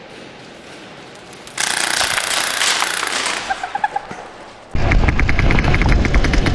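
Airsoft gun firing full-auto, a rapid, even stream of shots starting about two-thirds of the way in, after a stretch of rushing noise.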